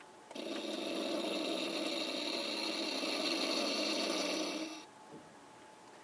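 Electronic sound effect played through the small built-in speaker of a Diamond Select/Art Asylum NX-01 Enterprise toy starship: a steady, noisy hum that starts a moment in and stops abruptly after about four and a half seconds.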